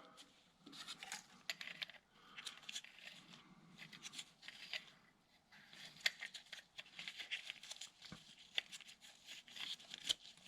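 Faint clicks, taps and scrapes of small metal fitting parts, a ring, rubber seal and sleeve, being handled and slid together by hand.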